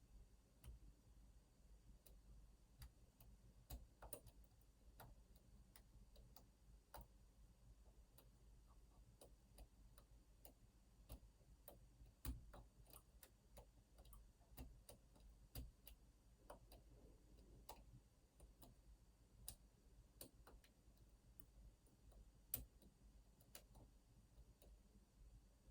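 Faint, irregular small metallic clicks and ticks of lock picks working the pins of an Opnus TEX lock.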